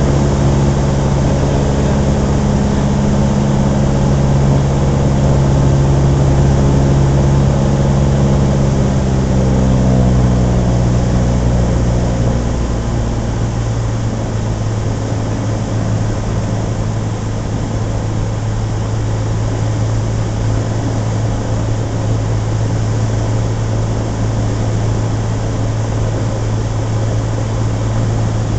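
Cessna 150's Continental O-200 four-cylinder engine and propeller heard from inside the cabin. The engine runs steadily, its note sinking a little; then, about twelve seconds in, it drops to a lower, slightly quieter note as power is reduced on the approach to land.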